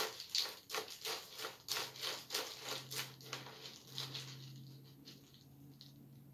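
Spoon stirring cereal pieces in milk in a bowl: quick repeated scraping and clinking strokes, about three a second, growing fainter after about four seconds.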